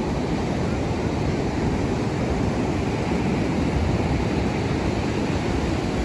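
Ocean surf breaking on a sandy beach: a steady, unbroken rush of noise heavy in the low end.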